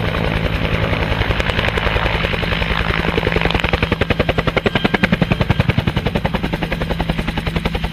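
Bell UH-1 'Huey' helicopter flying low. Its two-bladed main rotor beats about ten times a second over a steady engine hum, and the blade slap grows stronger about halfway through.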